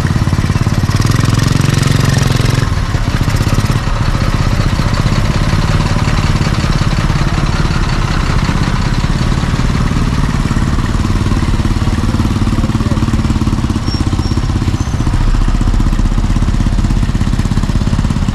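Small engine of a homemade motorbike running as the bike rides along, with a rapid, even firing throughout.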